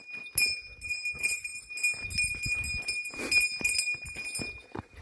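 A bear bell on a hiker's pack jingling with each step, a sustained high metallic ringing renewed several times a second. Footfalls on a dirt forest trail thud underneath.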